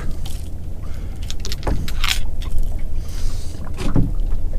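A steady low rumble with a few sharp knocks and clatters as a snarled fishing rig and tackle are handled and untangled on a small boat.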